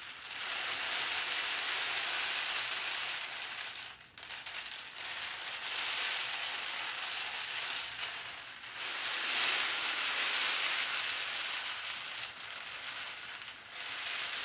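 Homemade extra-long cardboard-tube rainstick being tipped end over end: a steady rushing trickle as the filling falls through the aluminium-foil coil inside. Each pour lasts about four seconds, with a brief break each time the tube is turned over, three times in all.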